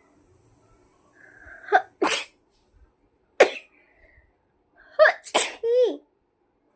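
A woman sneezing three times in quick succession. The first and last sneezes each start with a short sharp intake, and the last ends in a brief falling vocal sound.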